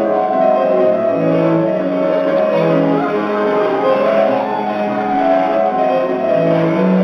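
Instrumental music: a melody of held notes with accompaniment, steady in loudness, for a children's dance.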